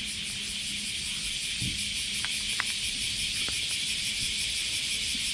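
A cat crunching dry kibble from a paper bowl, with a few faint crisp crunches, under a steady high drone of cicadas in summer heat.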